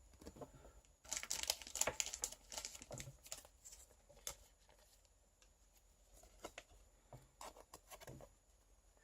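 Foil booster-pack wrapper crinkling and trading cards being handled: a dense run of rustles about a second in, then scattered crinkles and clicks.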